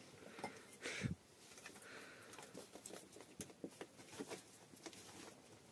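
Faint scattered taps and clicks from a restless young goat kid being bottle-fed, its hooves shifting against the floor and the feeder, with one louder knock about a second in.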